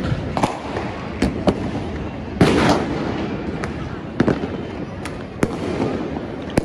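Fireworks and firecrackers going off across a city at New Year: a steady haze of distant bangs, sharp single reports every second or so, and a louder crackling burst about two and a half seconds in.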